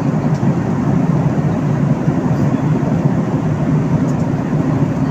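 Steady roar of an airliner in cruise heard from inside the cabin: engine and airflow noise, deep and even, with a low steady hum underneath.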